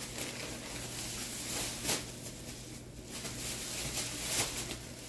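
Handling noise from items being rummaged for and picked up: soft rustling with a couple of short knocks, one about two seconds in and one near the end.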